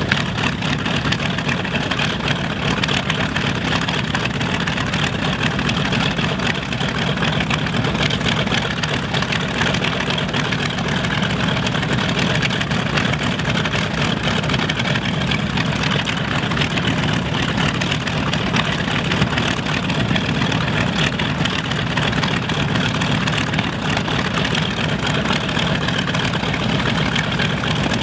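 North American B-25J Mitchell bomber's Wright R-2600 Cyclone radial engines idling steadily on the ground after start-up, running evenly with no change in speed.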